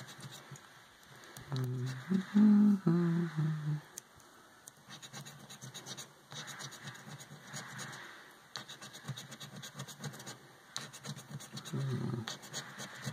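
Scratch-off lottery ticket being scratched with a small scraper, in repeated bouts of rasping strokes with short pauses between. A brief low hum of a voice comes about two seconds in.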